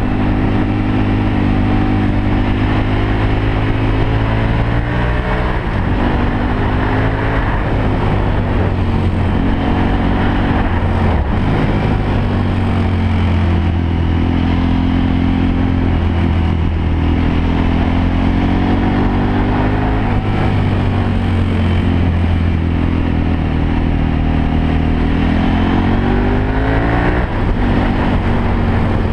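Motorcycle engine under way on a winding road, its pitch climbing as the rider accelerates and dropping as he shifts or eases off, several times over.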